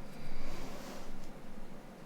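Light handling noise of small phone parts: a soft rustle during the first second, followed by a few faint clicks.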